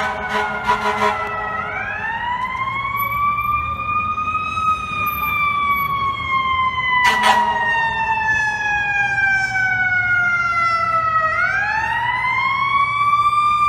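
Fire apparatus siren wailing. The tone climbs quickly, then slides slowly down over several seconds, and this happens twice. Short horn blasts sound near the start and again about halfway through.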